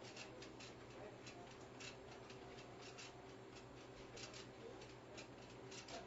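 Faint, irregular light clicks and handling noises, several a second and uneven, over a steady low electrical hum.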